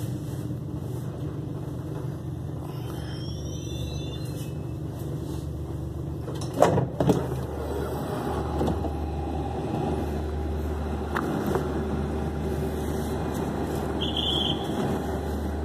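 A regional train standing at a station platform, its engine and equipment humming steadily, as the passenger door opens: a few high gliding tones about three seconds in, two loud knocks about six and a half seconds in, and a short high beep near the end.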